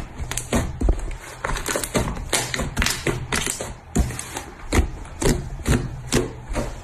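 A large mass of thick yellow slime pressed, kneaded and pulled apart by hand: an irregular run of sharp clicks and pops, several a second.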